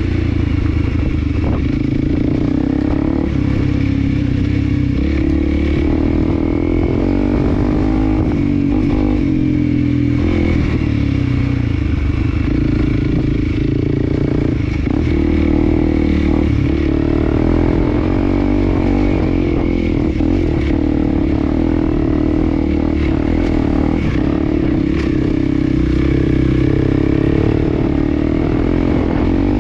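Motorcycle engine running continuously under way, its pitch rising and falling a little with the throttle.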